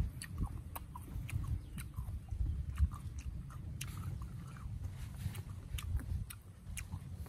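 A person chewing crisp raw fruit with the mouth closed: a quick, irregular run of wet crunching clicks.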